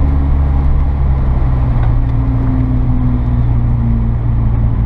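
Car engine humming at a steady cruise, with road and tyre noise, heard from inside the cabin.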